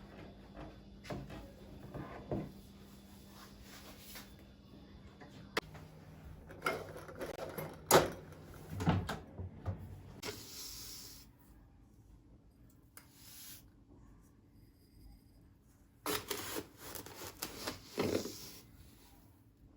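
Household handling sounds: scattered light knocks, clicks and rubbing as objects are moved and set down, with one sharp click about eight seconds in as the loudest, and a quieter stretch in the middle before a last burst of handling near the end.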